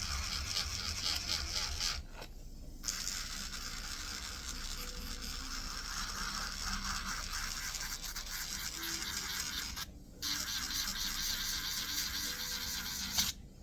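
An acrylic nail being filed down to remove gel polish: a steady scratchy abrading that breaks off briefly about two seconds in and again around ten seconds.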